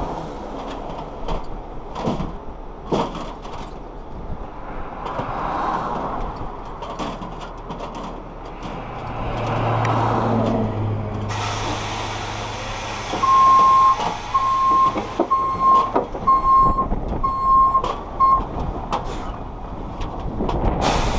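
Heavy tow truck's diesel engine running, a hiss of air setting in about halfway through, then its reversing alarm beeping several times, about once a second, as it backs into position.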